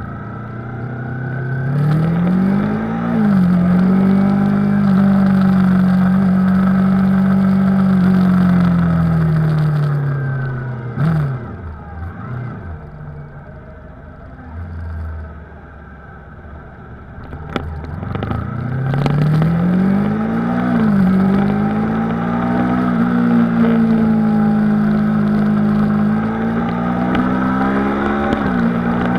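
Yamaha YZF-R3's 321 cc parallel-twin engine under way, pulling up through the gears with a pitch drop at each upshift, holding steady, then easing off to a low, quieter run for several seconds before pulling up through the gears again. Wind rush over the fairing runs underneath.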